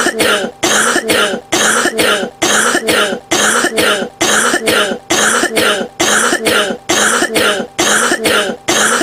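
Coughing in a fast, very even series of about two coughs a second, each a double hack with a hoarse, pitched tone.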